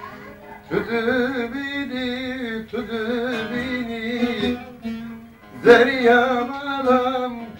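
A man singing an uzun hava, the free-rhythm Turkish/Kurdish long song, in long ornamented phrases with a wavering, melismatic line. The voice comes in about a second in, breaks briefly twice, and comes back strongest near the six-second mark, over a held note from a stringed instrument.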